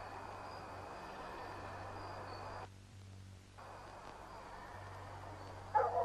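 Steady hiss with a faint high thin tone and a low hum, dropping out for about a second midway. A sudden loud, rough animal-like sound starts at the very end.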